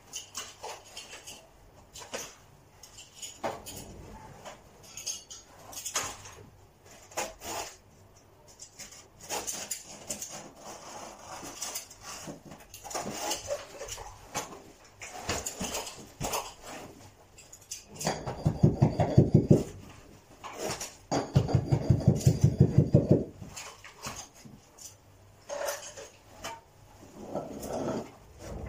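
Hand carpet-fitting work: scattered scrapes, taps and clicks of tools on the carpet and its edge. About two-thirds of the way through come two louder bursts of rapid, rhythmic pulsing, each about two seconds long.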